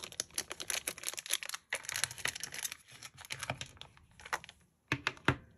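Small plastic packaging handled while charms are unpacked: a rapid run of crinkles and small clicks of plastic bag and clear plastic box, with a few sharper clicks near the end.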